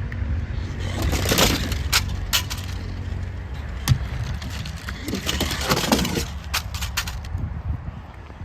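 Small toy cars clattering down a playground slide, with several sharp knocks and clicks as they hit and tumble.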